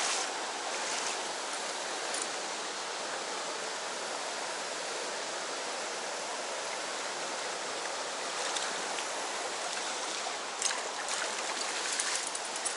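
Steady rush of flowing stream water, with a couple of faint ticks near the end.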